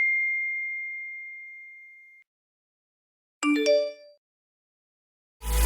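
Sound-effect ding: one clear bell-like tone fading away over about two seconds. About three and a half seconds in, a short chime of a few quick rising notes plays, and music starts right at the end.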